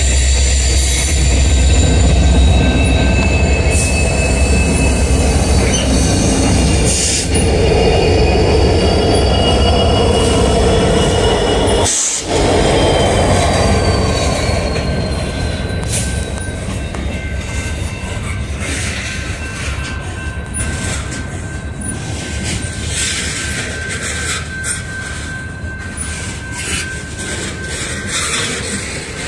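A BNSF freight train passing close by: the diesel locomotives' engines give a deep, steady rumble for about the first half. Then the freight cars roll past, wheels squealing in thin high tones over clicking rail joints.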